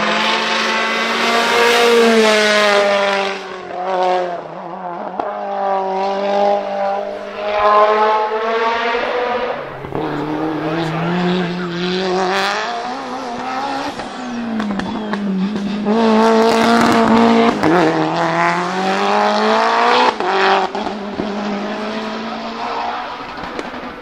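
Tuned Mitsubishi Lancer Evolution's turbocharged 4G63 four-cylinder engine at full throttle on a hillclimb. The engine note climbs in pitch through each gear and drops at every shift and every lift for the corners, then fades in the last seconds.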